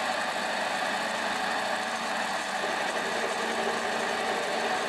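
Mini lathe running with a steady hum, its motor and gear train turning the chuck while the tool takes a facing cut across the end of a small crankshaft.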